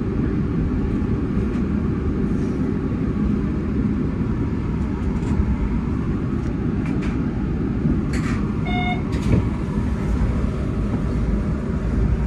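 Steady low rumble of train noise heard inside a driver's cab, with a few faint clicks and a short run of beeps about nine seconds in.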